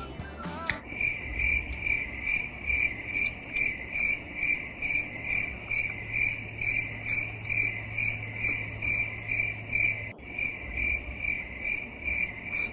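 Cricket chirping steadily, a little over two even chirps a second, with a brief break about ten seconds in.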